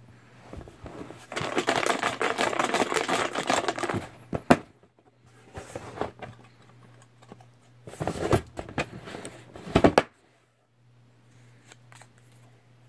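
Raffle entries being stirred and rummaged through in a container: two spells of dense rustling and rattling, about a second in and again around eight seconds, with a few sharp clicks between them.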